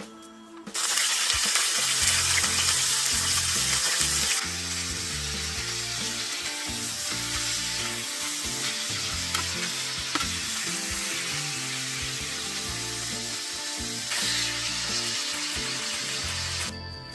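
Pieces of raw meat hitting hot oil in a small camping frying pan on a gas camp stove: a loud sizzle starts about a second in, eases after a few seconds to a steady frying sizzle, and stops shortly before the end.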